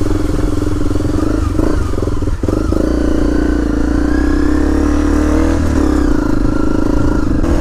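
Honda CRF250L's single-cylinder four-stroke engine running through a Delkevic full-system aftermarket exhaust, ridden at low revs on a dirt trail. The note dips briefly about two and a half seconds in, rises slowly for a few seconds as the throttle opens, then eases back near the end.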